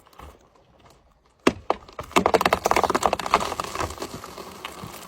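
Wood cracking and splintering: a single sharp crack about a second and a half in, then a dense run of cracks and snaps that fades into rustling, as a fire-damaged tree breaks and comes down.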